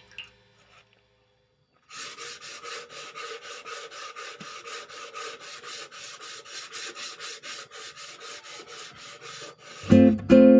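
Hand sanding with fast back-and-forth rasping strokes, about five a second, for roughly eight seconds, typical of sanding down a motorcycle fuel tank for a repaint; guitar music starts near the end.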